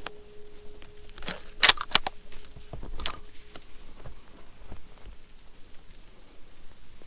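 Metallic clicks and clacks of a Cobray Terminator 12-gauge shotgun's action being worked by hand after a shot, a handful of sharp strokes, the loudest about a second and a half in. A faint steady metallic ring fades out in the first few seconds.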